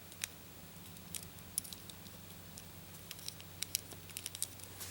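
Scattered light clicks and taps of a small plastic Bakugan figure being handled and worked open, a dozen or so faint ticks spread irregularly, over a steady low hum.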